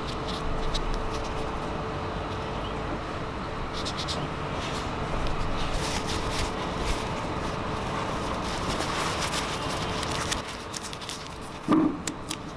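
Anritsu MA517 metal detector running with a steady hum, with scattered clicks and handling noise and a louder knock near the end.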